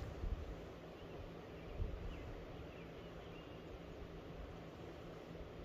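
Quiet outdoor ambience: a low rumble with a few faint, short high chirps of small birds in the first half.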